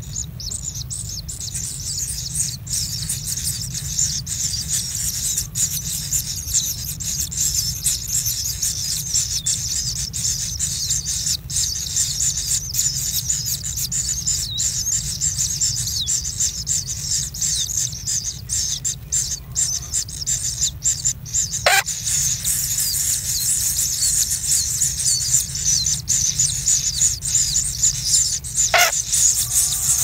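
A nestful of kingfisher chicks keeps up a dense, continuous high-pitched chorus of begging calls. Beneath it runs a steady low hum, and two brief sharp sounds stand out, one about two-thirds of the way through and one near the end.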